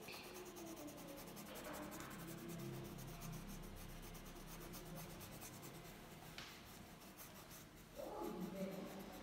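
Tip of an orange coloring pen scratching on paper in rapid back-and-forth strokes as a drawing is shaded in.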